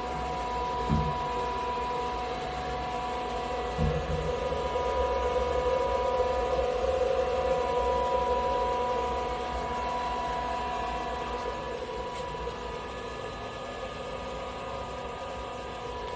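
Fanuc Robodrill Alpha T-14iA CNC drill and tap center powered up and idling, with a steady electrical hum and a high whine. Two dull knocks come about one second and four seconds in.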